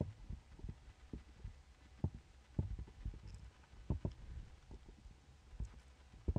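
Computer mouse clicks and desk bumps picked up by the microphone: a dozen or so short, dull thumps at irregular intervals over a faint hum.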